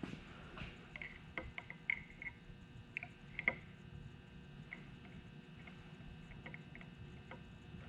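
Light, irregular metallic clicks and taps from small engine parts and hand tools being handled, clustered in the first half and sparser later.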